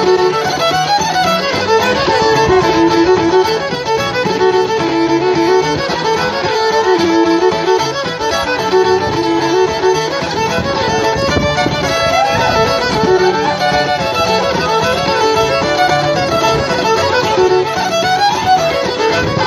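Fiddle playing a fast-moving tune, accompanied by a Roland RD-700 keyboard.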